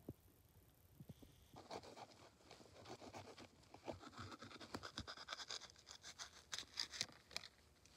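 A small knife cutting into a fresh green bell pepper: a run of quiet, crisp cuts and scrapes that starts about a second and a half in.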